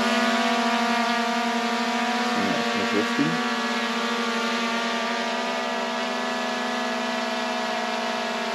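DJI Air 2S drone's propellers whining steadily while it hovers and drifts away, the sound slowly fading.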